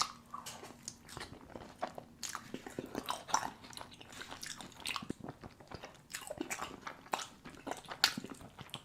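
Close-miked eating sounds: a person biting and chewing food, heard as a steady run of irregular wet clicks and smacks, with a sharp louder one at the start and another about 8 seconds in.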